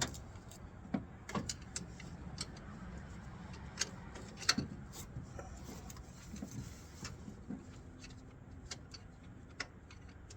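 Scattered light clicks and knocks of hand tools being handled, a screwdriver and flashlight, while working at the engine, with the sharpest knock about four and a half seconds in.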